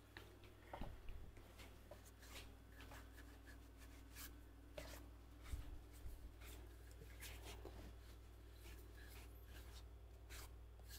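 Faint rubbing of a cloth over a turned wooden mallet, with small scattered ticks as it is handled, over a low steady hum.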